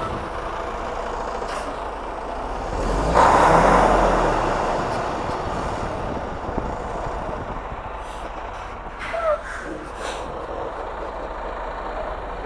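Semi truck's diesel engine running as the rig backs up, with a surge of engine noise about three seconds in that eases off over the next few seconds.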